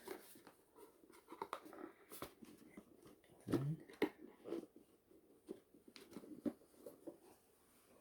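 Paper and cardboard packaging handled by hand: scattered light rustles, taps and clicks. About three and a half seconds in there is a brief voice-like sound that rises in pitch.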